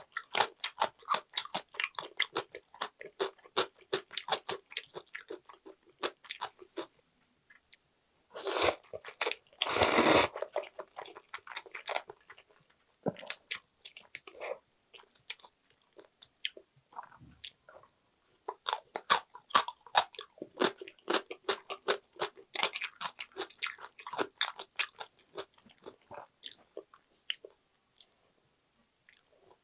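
Wet, rapid clicking chewing of chewy jjolmyeon noodles. Two loud noodle slurps come about eight and ten seconds in, and the chewing runs on after them.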